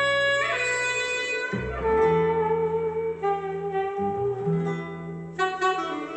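Music played back through a YL Acoustic five-way horn loudspeaker system: a held melody line with a rising slide about half a second in, over sustained bass notes, with plucked guitar notes coming in near the end.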